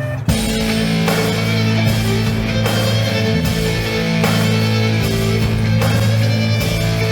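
Background rock music with guitar and a steady beat, coming in loud a moment after the start.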